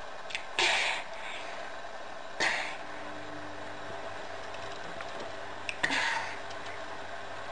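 A toddler chewing a raw onion lets out three short, breathy gasps, over a steady background hum.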